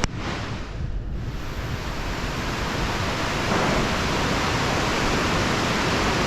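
Steady rushing roar of the Tumpak Sewu waterfall's water plunging into the gorge, possibly mixed with wind on the microphone. It dips briefly at the start, then holds steady.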